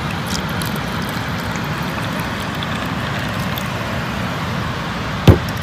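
Steady rushing noise of beach surf, with one sharp knock about five seconds in that is the loudest sound.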